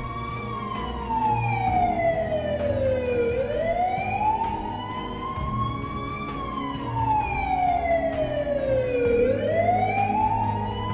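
Ambulance siren wailing. Its pitch climbs quickly, then slides slowly down in a repeating rise and fall of about six seconds per cycle, about twice through.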